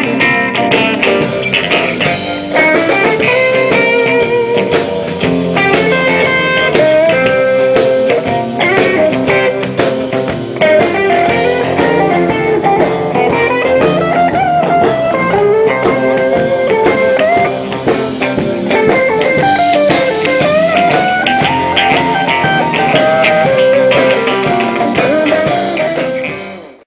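Live blues band playing electric guitars over a drum kit, with a wandering guitar melody line. The music fades out near the end.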